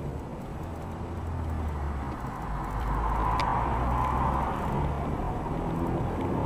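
Steady engine and road noise of a moving car, heard from inside its cabin, a low hum that grows somewhat louder about three seconds in. A single faint click about halfway through.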